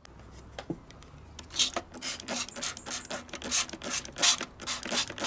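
Hand wire brush scrubbing small steel screws in quick, regular strokes, about two to three a second, starting about one and a half seconds in.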